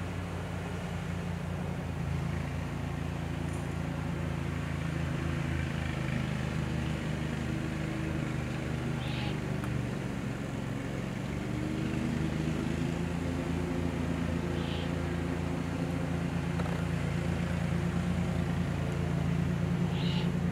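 Steady low engine hum of a motor vehicle running, its pitch drifting slightly, with three brief high chirps spaced through it.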